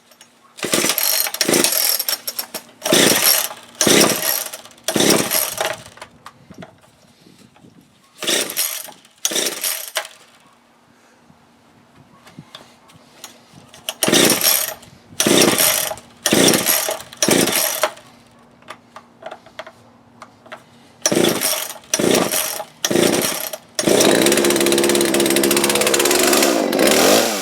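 Poulan P3816 two-stroke chainsaw being pull-started: about fourteen short bursts in four rounds of pulls on the recoil starter before the engine catches near the end and keeps running, its pitch rising and falling. The hard start comes from a slightly flooded engine.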